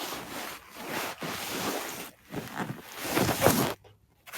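Rushing, wind-like noise in gusts that cut in and out abruptly several times, loudest about three and a half seconds in.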